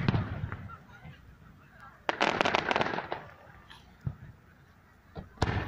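Fireworks shells bursting in a starmine sequence. A boom at the start fades out, and about two seconds in there is a second of dense crackling. Single thuds follow around four and five seconds in, then another boom near the end.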